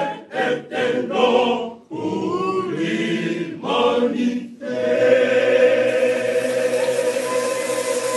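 Male church choir singing a cappella: several short sung phrases with brief breaths between them, then one long chord held from about halfway through.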